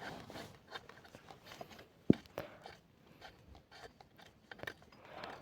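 Quiet handling noise: light clicks and rustles with one sharp knock about two seconds in, as a spark plug is threaded back in by hand.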